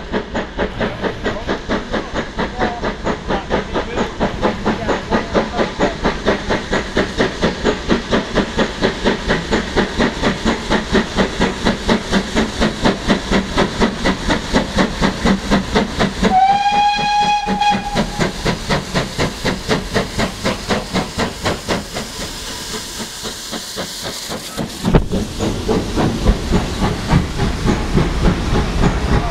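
Steam locomotive working a train uphill, its exhaust beating in a rapid, even rhythm with steam hiss. About halfway through it gives one whistle of about a second and a half. Near the end the train passes close by and the sound grows louder and deeper.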